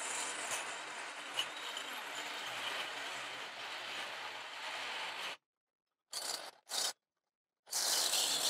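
Milwaukee Hackzall reciprocating saw cutting through a trailer jack's metal crank handle. The cut runs steadily for about five seconds, breaks off, comes back as two short bursts, then resumes louder near the end.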